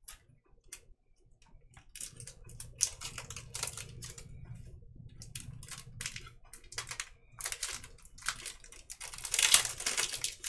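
Thin metal stencil ruler being handled and flexed in the hands: a run of light clicks, taps and rustling, loudest and busiest about nine seconds in.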